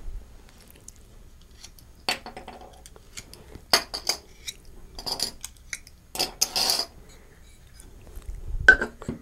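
Metal binder clips being unclipped from a glass-topped stack and set down on a tabletop: a scattered series of clicks and clinks, with a short scraping sound about two-thirds of the way through.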